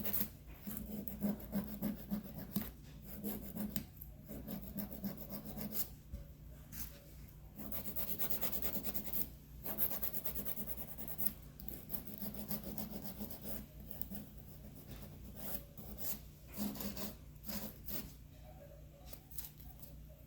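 Nail file rasping against plastic nail tips in uneven runs of strokes with short pauses, shaping the tips.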